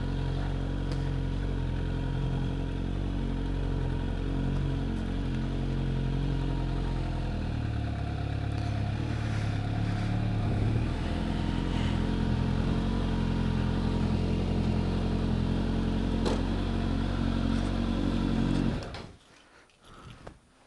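Motorcycle engine running steadily at low speed, its pitch shifting a little partway through, then switched off about nineteen seconds in.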